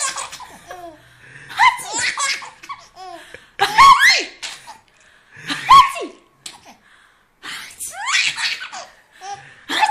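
A baby laughing in repeated hearty belly-laugh bursts, about five fits of laughter with short pauses between, set off by an adult's mock sneezes.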